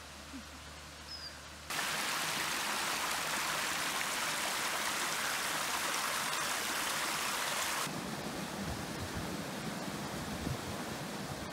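Water pouring over a small weir on a shallow stream: a loud, steady rushing that starts abruptly about two seconds in and drops away about eight seconds in. It gives way to softer running water with some low rumbling.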